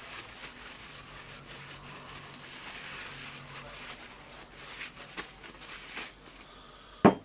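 Paper towel crinkling and rubbing as a greasy metal demolition-hammer part is wiped clean, with one sharp knock near the end.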